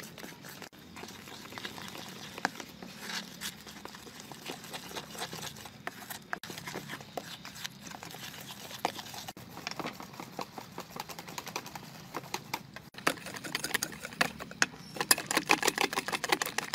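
A hand squelching and patting a wet flour-and-egg batter in a stainless steel bowl, in quick repeated strokes that grow faster and louder toward the end.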